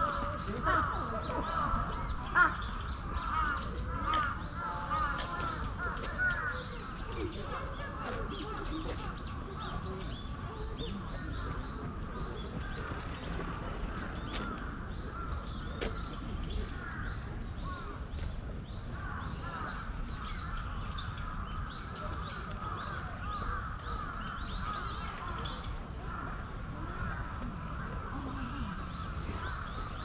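Birds calling in the park trees, many short overlapping calls, with a few louder calls in the first few seconds.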